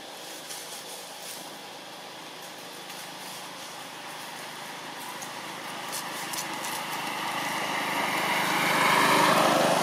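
A small motorbike engine passing on the road. Its steady hum grows louder through the second half and peaks near the end as it goes by.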